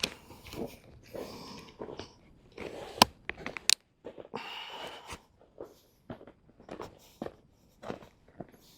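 Irregular handling and movement noises: scattered knocks, rustles and clicks. A sharp click comes about three seconds in and another shortly after.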